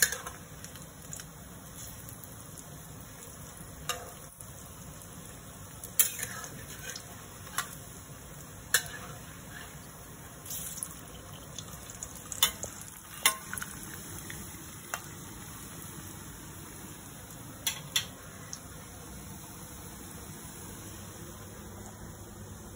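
Falafel balls deep-frying in hot oil in a steel kadhai, a steady sizzle, while they are turned for even browning. A metal spatula clinks sharply against the pan about ten times.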